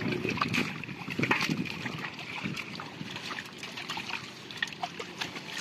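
Shallow water splashing and trickling, with many small irregular clicks and splashes, busiest in the first second or so.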